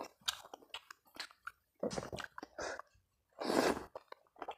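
Close-miked chewing and wet mouth sounds of a person eating chicken noodles (mie ayam), then a loud slurp of noodles about three and a half seconds in.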